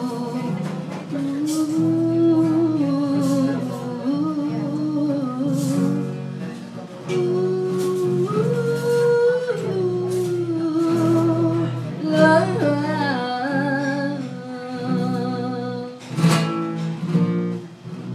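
A woman singing a Spanish-language song over guitar accompaniment, holding long notes with vibrato.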